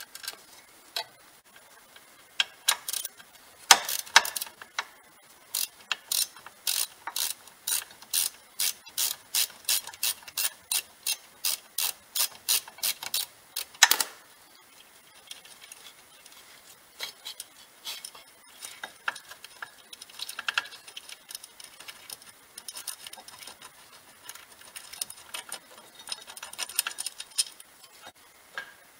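Ratchet wrench with an 18 mm socket clicking as a brake caliper carrier bolt is undone. A regular run of ratchet clicks, about two a second, ends in a louder click, followed by lighter irregular clicking and rattling as the bolt is worked loose.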